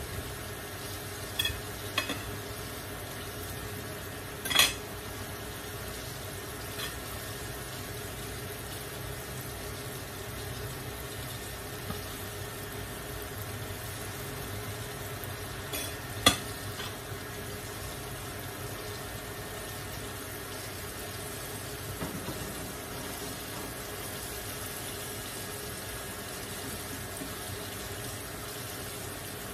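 A stainless steel pot of broth and vegetables simmering on an induction cooktop: a steady bubbling hiss, broken by a few sharp clinks, the loudest about four and a half and sixteen seconds in.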